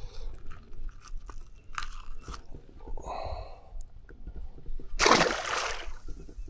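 Scattered clicks and rustling as a small fish and jig are handled in an aluminium jon boat, then a splash about five seconds in as the fish goes back into the pond beside the boat.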